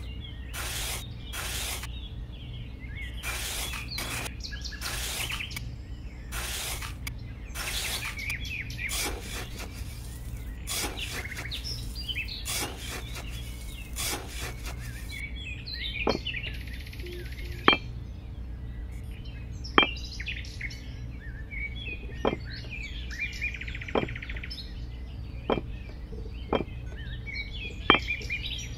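A small hand tool scraping and digging through sand in repeated strokes for about the first half, then sharp single clicks every second or two as tiny clay bricks are set in place. Birds chirp throughout.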